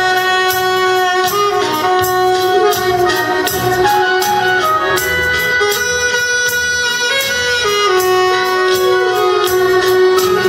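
Saxophone playing a slow, sustained melody with a piano accordion accompanying, over a steady beat.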